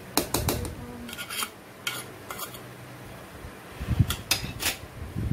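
Kitchen utensils clinking and scraping against a glass plate and a pot as a cube of butter is scraped off the plate into the chocolate cream, with a couple of heavier knocks about four seconds in and near the end.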